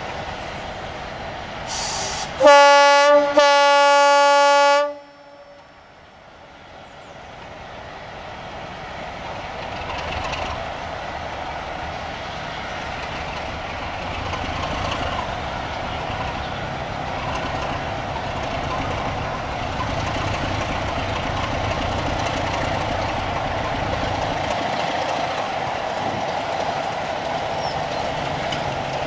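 A BR Class 33 diesel locomotive sounds its horn twice, a short blast then a longer one, about two and a half seconds in. Then its engine and the train running on the rails grow steadily louder as it approaches.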